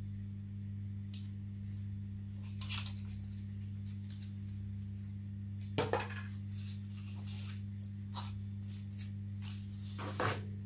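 A few brief rustles and scrapes of foam model-kit parts being handled, over a steady low electrical hum.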